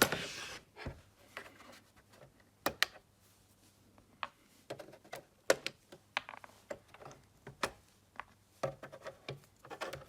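Scattered small plastic clicks and scrapes at irregular intervals as the control knobs are pulled off the front panel of a Tektronix TDS210 oscilloscope.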